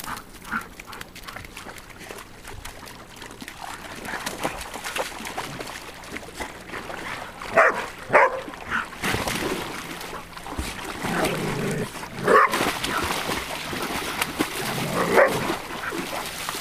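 Groodles (golden retriever–poodle cross dogs) barking about four times, a few seconds apart, as they play in lake shallows, with water splashing around them.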